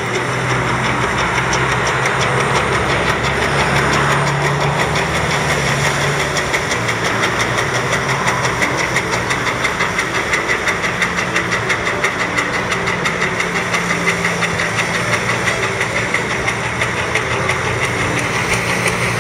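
Engine of a twin paddle-wheel weed-cutting boat running steadily as its paddle wheels churn the water, with an even rhythmic pulsing.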